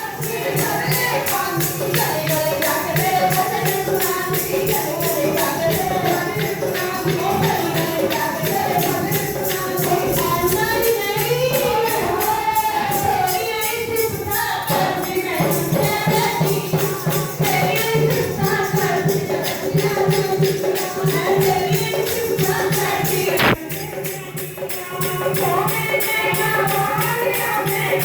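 Hindu devotional kirtan: voices singing a chant over a steady held drone, with a fast, even beat of jingling hand percussion. The music drops briefly about three quarters of the way through, then carries on.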